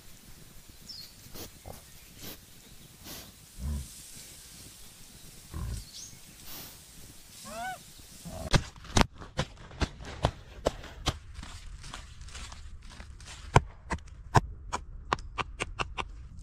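Wild boars grunting in short low bursts, with a few birds chirping. About halfway through this gives way to an irregular run of sharp knocks and cracks, two or three a second.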